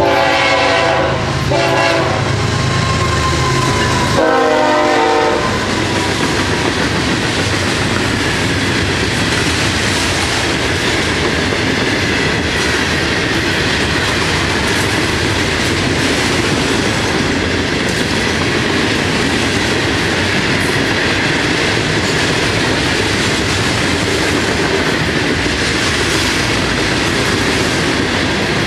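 FEC freight locomotive horn sounding three short toots in the first five seconds over the low diesel rumble of the lead units, then the steady rolling clatter of a long freight train's cars going by.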